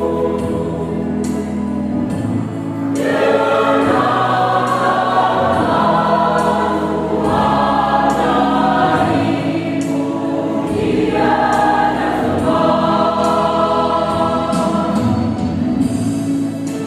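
Church choir singing a hymn in sustained chords with accompaniment, swelling louder about three seconds in.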